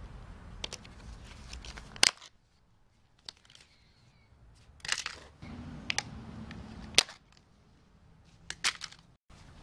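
A handful of sharp clicks and snaps, the loudest about two seconds in, as a screwdriver pries up and a gloved hand peels off a white insulating strip from the battery modules' terminal row.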